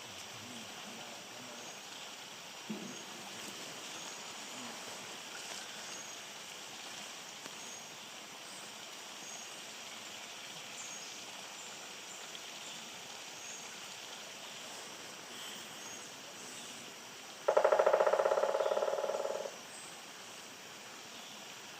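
Woodpecker drumming on wood: one rapid roll of about two seconds, starting loud and fading off, about three quarters of the way in, over a steady outdoor background.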